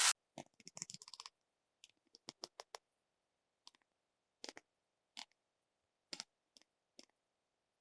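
Plastic LEGO ratcheting click-hinge joint clicking as it is turned: a quick run of clicks in the first few seconds, then single clicks about a second apart.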